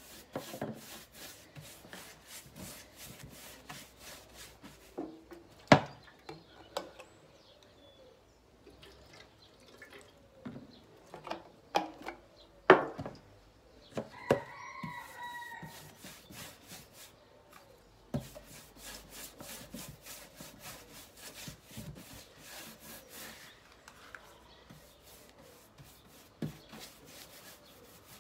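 Paintbrush scrubbing liquid anti-woodworm treatment onto bare wooden drawers in quick repeated strokes, with a few sharp knocks as the brush meets the wood and the small plastic tub it is dipped in.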